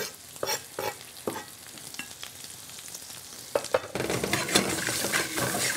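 Bias-cut carrots sizzling in a generous amount of oil in a stainless steel sauté pan, with a few sharp knife taps on a cutting board as shallots are sliced. About four seconds in the crackling gets louder and denser.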